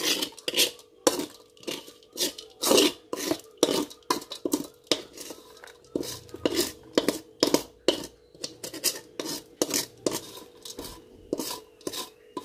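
Long metal spatula scraping and knocking against the inside of a metal wok in repeated strokes, about two a second, as sticky fried potato and tempeh are scraped out.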